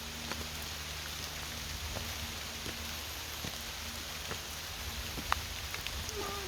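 Steady rain falling, with scattered close drops ticking.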